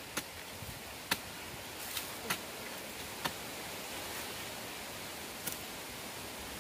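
Hoe blade chopping and scraping into dry, lumpy soil while digging sweet potatoes: a handful of sharp, uneven knocks over a steady background hiss.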